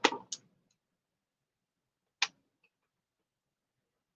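Sharp clicks and taps of plastic as the action figure and its packaging are handled: three in quick succession at the start, then one more about two seconds in.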